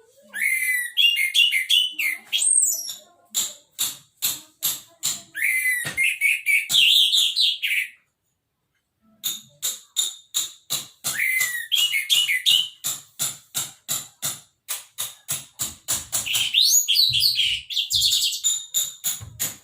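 Orange-headed thrush singing: whistled, warbling phrases broken up by long runs of short, sharp repeated notes, about three or four a second, with a pause of about a second partway through.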